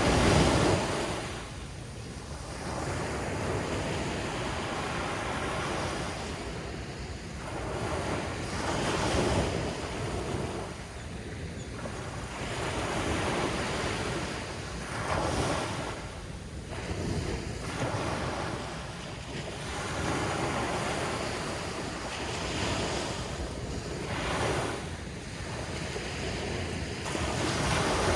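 Atlantic surf breaking on a beach, waves swelling and washing out every few seconds, the biggest just at the start, with wind buffeting the microphone.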